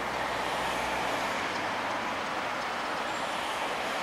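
Class 60 (060-DA) diesel-electric locomotive rolling slowly toward the listener with passenger coaches behind, its Sulzer diesel engine running steadily; a low engine hum weakens about a second in.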